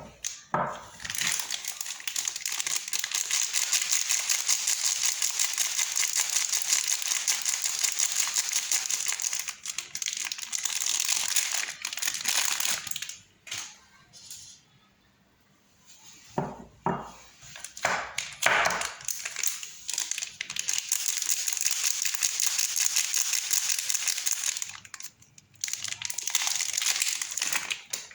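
Soap packaging crinkling continuously as a bar of soap is unwrapped by hand. There are two long stretches of crinkling, with a pause and a few short handling noises in the middle.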